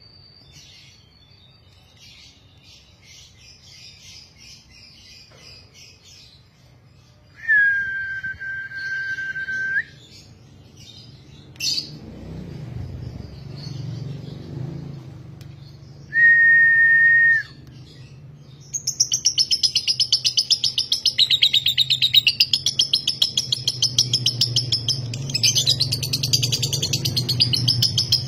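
Lovebird chirping softly, then, about two-thirds of the way in, breaking into a long, rapid, unbroken chatter: the long ngekek of a 'konslet' lovebird. Before that, two steady held whistle notes sound, one about a quarter of the way in and a shorter one just past the middle.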